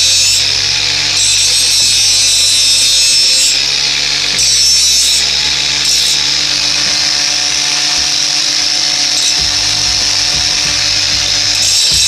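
Makita 18V LXT cordless angle grinder running, its disc grinding the steel edge of a blunt hatchet to sharpen it. The motor whines steadily under a harsh grinding hiss that strengthens and eases every second or so as the disc is worked along the edge.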